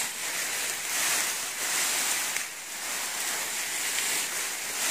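Grass and leaves rustling and brushing as someone pushes through dense undergrowth, swelling and fading about once a second.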